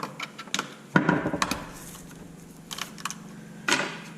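Scattered clicks and knocks of a plastic RC truck cover and small parts being handled and set down, the loudest knock about a second in.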